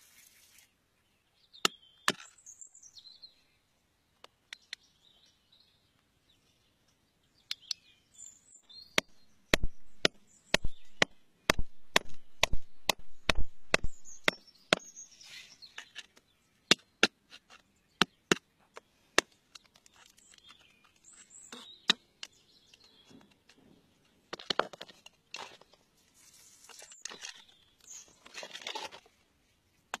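Metal prying tool striking and chipping at rock in sharp, separate taps, about two a second and heaviest in the middle. Near the end it gives way to scraping and crumbling of loose stone and grit.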